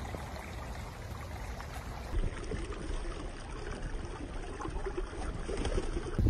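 Shallow stream trickling among rocks, with a low rumble underneath.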